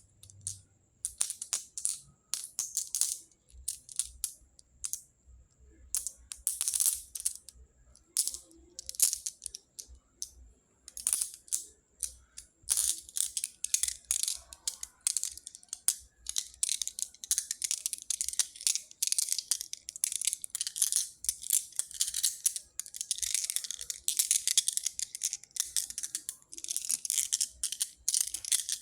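Small pebbles clicking and rattling against one another in uneven bursts as they are handled close to the microphone. From about halfway through, the rattling grows denser and nearly continuous.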